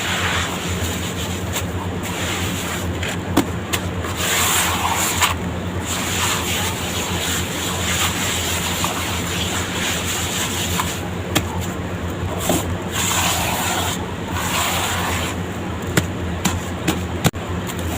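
Sand-cement blocks crumbling and crunching in water: a gritty rubbing sound that swells twice, with scattered small cracks, over a steady low hum.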